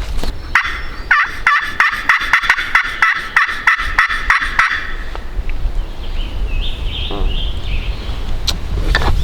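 Turkey call worked by a hunter, sounding a fast, even run of about fourteen hen yelps, roughly three a second, to draw in a gobbler. A low rumble of wind on the microphone follows.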